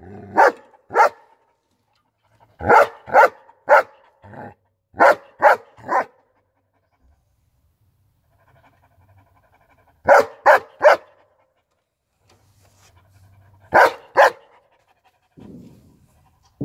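A long-coated German Shepherd, about a year old, barking: sharp single barks in quick groups of two to four, with pauses between the groups. It is panting near the end.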